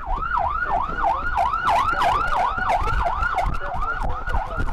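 Police car siren in fast yelp mode, its pitch sweeping up and down about three times a second.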